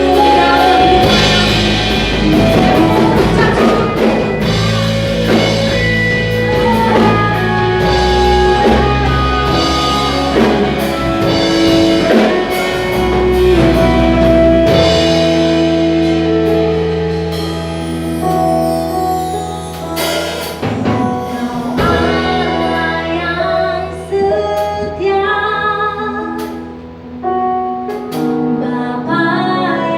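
Live worship band playing a praise song with singing, drum kit and guitar, fuller in the first half and thinning to a softer passage after about fifteen seconds.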